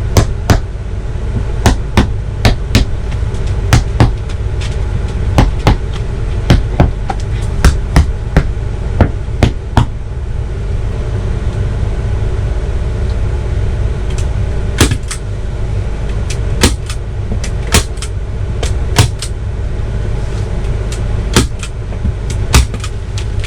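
Hammer tapping fasteners into a particle-board headboard, sharp strikes in quick runs with a lull of a few seconds about ten seconds in, over a steady low hum.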